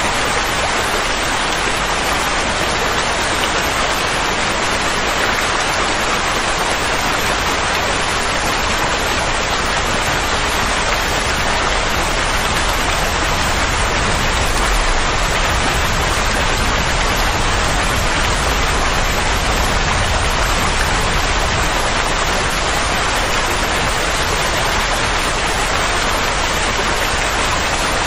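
Steady soothing noise of the kind played to settle a colicky baby: an even, unbroken hiss with a low rumble underneath.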